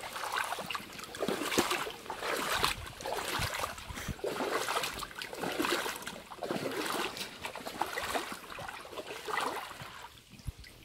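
Footsteps wading through river water, splashing roughly once a second, fading out near the end.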